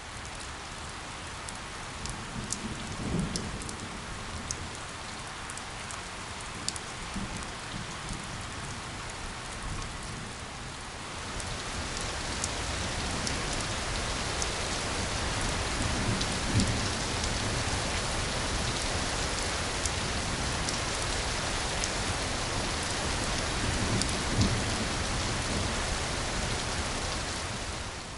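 Steady rain falling on a surface, with individual drops ticking through it. The rain grows heavier and louder about a third of the way in. A few brief low thumps stand out, the loudest near the middle and near the end.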